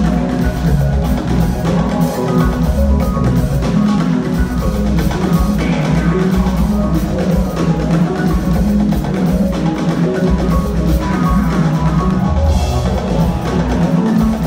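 Electronic jazz band playing live: a drum kit and deep bass under repeating keyboard notes.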